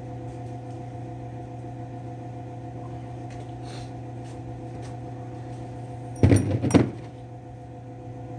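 Steady background hum. About six seconds in comes a brief metallic clatter with two sharp knocks as the chainsaw's clutch hub and sprocket are slid back onto the crankshaft over the greased needle bearing.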